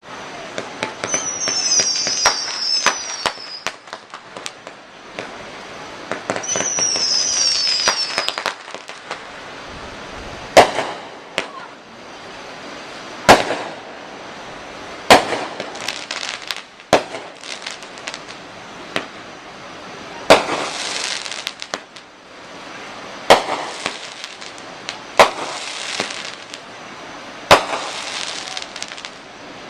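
Fireworks going off. Twice there is a burst of rapid crackling with several whistles falling in pitch. Then come sharp bangs every two to three seconds, some followed by a spray of crackling.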